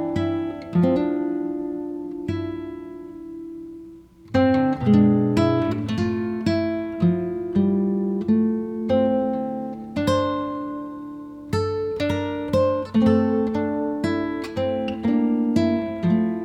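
Background music of plucked acoustic guitar, notes ringing and fading, with a brief pause about four seconds in before the playing picks up again.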